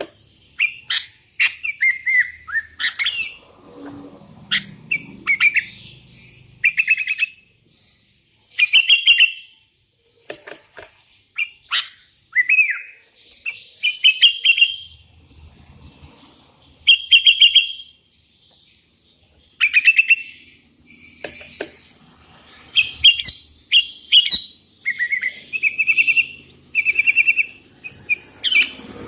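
Sooty-headed bulbul singing in full song: short chirping phrases repeated every second or two, with brief pauses between them.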